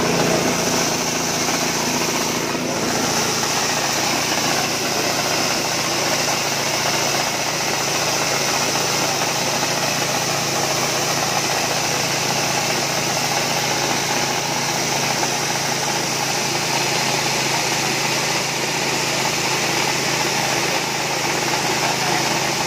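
Small petrol engine running at a steady speed, driving a portable dry-coffee huller.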